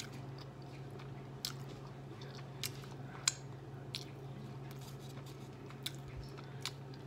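A person chewing a mouthful of taco, with scattered short crunches from the taco shell.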